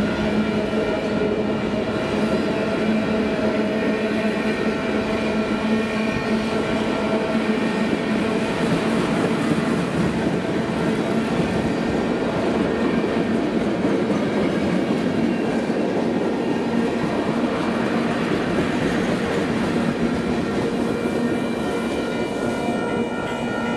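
Freight train tank cars rolling past at speed, with steady wheel and rail noise and clickety-clack over the rail joints. A grade-crossing bell rings throughout and stands out more near the end, after the last car has passed.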